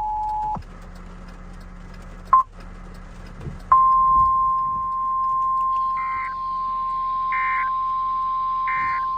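The two-tone EAS attention signal cuts off about half a second in. After two brief blips, a steady single-pitch NOAA Weather Radio alert tone starts near four seconds in, and three short warbling bursts of SAME header data squawk over it about a second and a half apart near the end.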